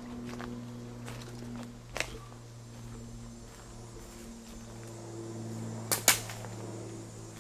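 Footsteps through dry leaf litter, with a sharp twig snap about two seconds in and two louder snaps close together near six seconds, over a steady low hum.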